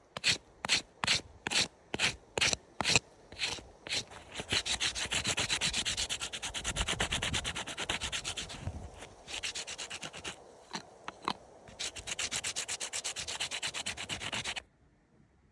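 A knife blade scraping along a strip of green tree bark laid on a wooden stump, stripping off the outer bark to get at the inner-bark fibres. It starts as separate strokes, two or three a second, then turns into fast, continuous scraping with a few short breaks, and stops abruptly near the end.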